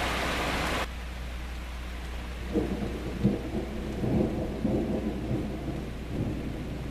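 Steady hiss of heavy rain that cuts off abruptly about a second in. A couple of seconds later, a rumble of thunder with several sharp cracks rises and then trails off.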